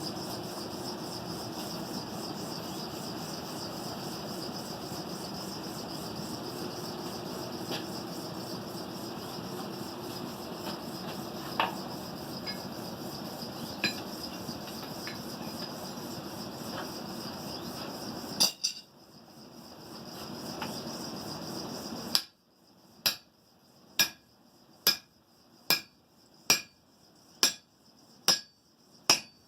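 A forge running with a steady rushing noise and a few light clinks of metal. It cuts off at a clang about two-thirds through. Then a hammer strikes hot steel about once a second, eight or so ringing blows, driving a drift through the eye of a forged hammer head.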